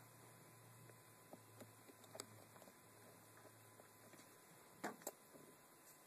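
Near silence: a low steady hum with a few faint clicks of cables and plugs being handled, two of them close together near the end.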